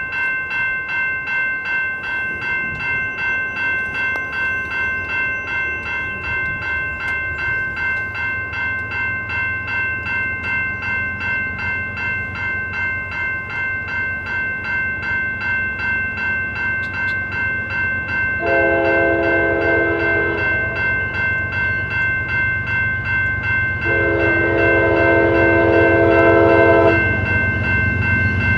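Grade-crossing bell ringing steadily, about two strokes a second, as a Norfolk Southern freight train's diesel locomotives approach with a growing rumble. The lead locomotive sounds its multi-chime air horn in two long blasts, the second the louder.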